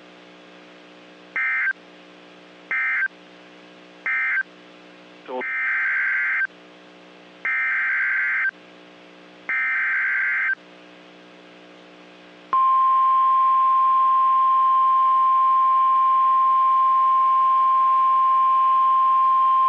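NOAA Weather Radio emergency alert (SAME) data tones: three short bursts, then three longer buzzy bursts about two seconds apart. About twelve seconds in, the loud, steady 1050 Hz warning alarm tone begins, signalling that a new warning is about to be read.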